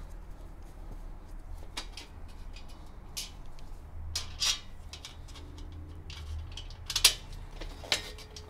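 Scattered small metal clicks and clinks of bolts, washers and nuts being handled and fitted while assembling a folding workbench frame, about half a dozen, the sharpest about seven seconds in.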